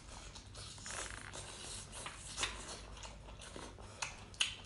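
Cooked lobster shell being pulled and broken apart by hand: faint crackling with a few sharp clicks and snaps, the clearest a little after two seconds and twice about four seconds in.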